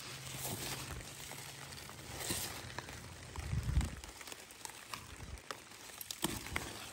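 Large squash leaves rustling and crackling as a hand pushes through the plants, with scattered faint clicks and a couple of low bumps about halfway through.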